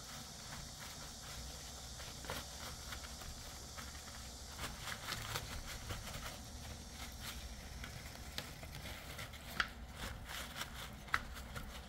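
Paper towels rustling and crinkling as hands press and pat pieces of eel backbone dry on a steel tray, with light scattered taps and two sharper ticks near the end.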